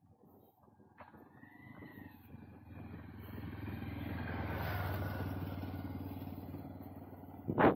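A motorcycle passing, its engine growing louder to a peak about halfway through and then fading away. A sharp knock near the end is the loudest sound.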